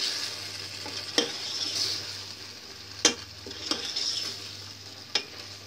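Cauliflower Manchurian gravy sizzling in a steel pot while a metal spoon stirs it. The spoon knocks sharply against the pot four times.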